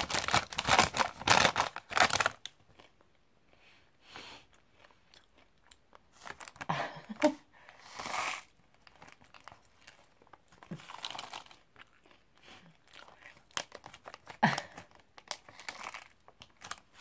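Crisp packet rustling and crinkling loudly for the first two seconds as it is tipped up to the mouth, then crisps crunching in scattered bites of chewing.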